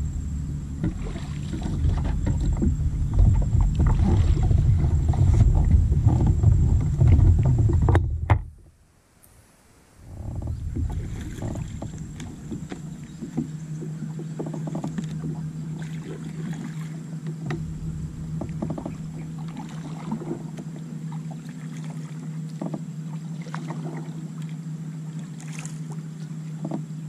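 Launching and paddling a plastic fishing kayak: a loud low rumble of handling for the first eight seconds cuts off suddenly, then paddle strokes splash and drip with light knocks against the hull.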